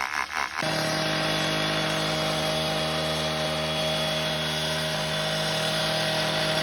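Power tool motor running: rough at first, then settling into a steady whine about half a second in.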